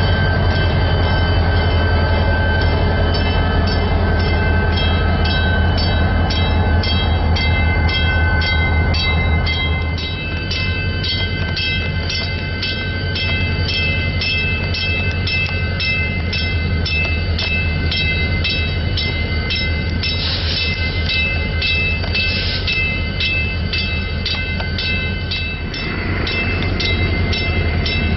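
Chicago & North Western EMD SD40-2 diesel locomotive running: a steady low engine drone with a high steady whine over it and a regular light clicking. The sound drops somewhat about ten seconds in and comes back up near the end.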